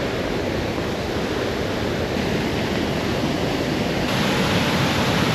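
Steady rush of a fast-flowing mountain stream, growing a little louder and hissier about four seconds in.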